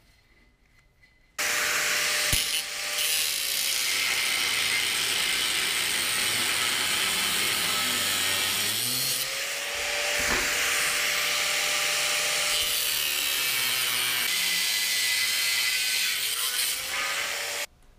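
Angle grinder with a cutoff disc cutting through aluminium channel: it starts suddenly about a second and a half in, and its motor whine dips and picks up again a few times during the cut. It stops abruptly near the end.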